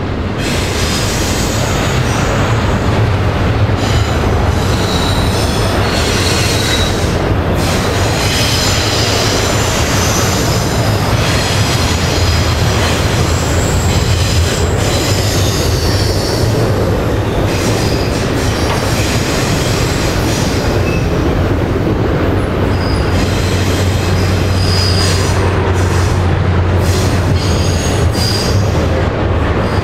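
Freight train rolling past close by with a steady low rumble, its wheels squealing on and off in high tones as they grind around the curve.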